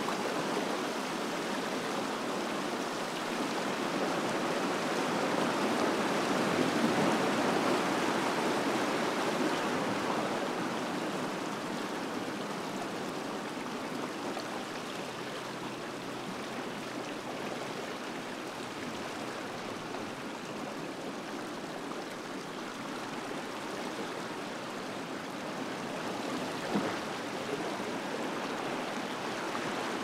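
Seawater washing over a rocky shore ledge and pouring off the rocks in small cascades, a steady rush of water. It swells a few seconds in and then eases to a softer wash and trickle.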